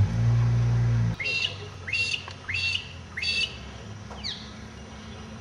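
A low steady hum cuts off about a second in. Then a bird calls four times in quick rising notes, followed by two short falling notes.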